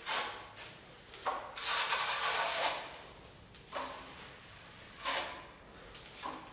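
Plastering float scraping joint compound across a wall in repeated strokes: a short stroke at the start, one long sweep of over a second beginning about a second in, then three shorter strokes.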